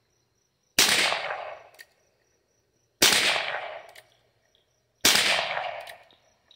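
Heritage Rough Rider .22 LR single-action revolver fired three times, about two seconds apart; each sharp crack trails off over about a second.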